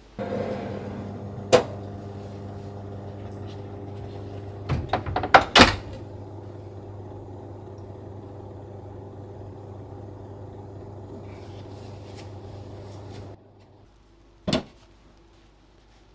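Convection oven's fan running with a steady electric hum, with a sharp metal click about a second and a half in and a quick run of metal clatters around five seconds as the cake tin on its tray goes in and the oven is shut. The hum stops suddenly near the end, and a single knock follows.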